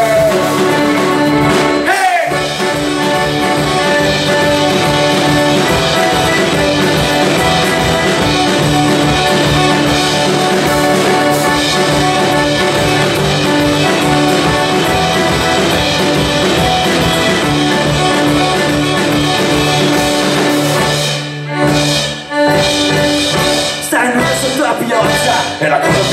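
Live folk-rock band playing an instrumental passage, with accordion, guitars and drums. The music drops out for a moment twice about 21 seconds in, then carries on.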